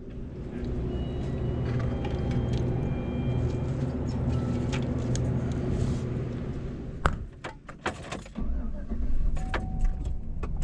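Steady electrical hum of refrigerated drink coolers in a store. About seven seconds in come several sharp clicks and knocks, then the low rumble of a car engine running, heard from inside the car.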